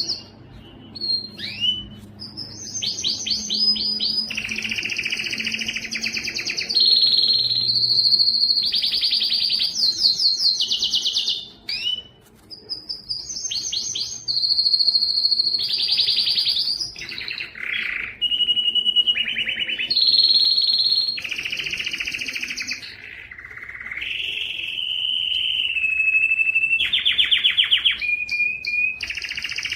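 Domestic canary singing a long song of rapid trills and held whistled notes, changing phrase every second or two. There is a brief pause about twelve seconds in, and some held notes sit lower in pitch near the end.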